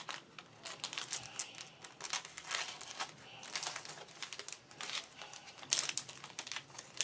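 Packaging crinkling and rustling as it is handled, in irregular crackles.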